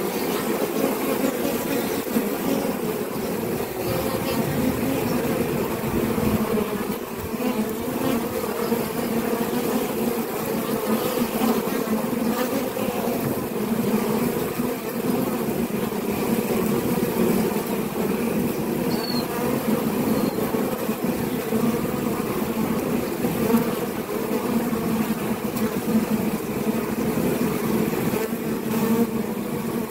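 Honey bees buzzing in numbers at the hive entrance: a steady, unbroken hum.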